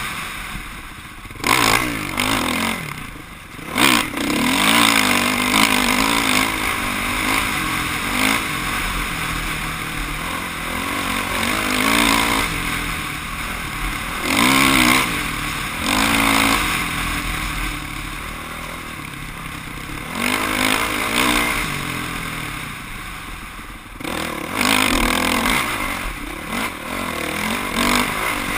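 Off-road motorcycle engine revving up and down as it is ridden along a trail, with the revs rising and falling over the whole stretch. It drops off the throttle briefly a couple of times near the start and once near the end, with some rattling and scraping from the ride.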